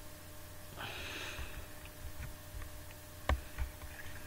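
A short sniff-like breath through the nose about a second in, then a single sharp click a little over three seconds in, with a few faint ticks, over a faint steady electrical hum.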